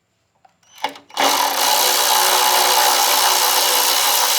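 A power tool's motor, such as a cordless drill or driver, spinning up about a second in and running steadily and loudly at one speed, most likely backing out a fastener on the intake's lower half. A short knock comes just before it starts.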